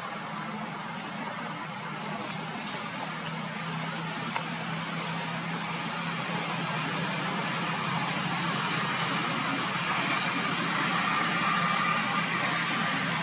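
Steady background of a motor vehicle engine running with road traffic noise, gradually getting a little louder. Over it, a short high chirp repeats about every second and a half.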